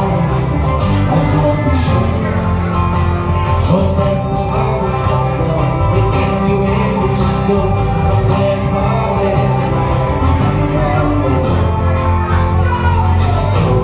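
Live folk band playing an instrumental passage: a whistle carries the melody over strummed acoustic guitar, electric bass and electric guitar, with a steady strumming rhythm.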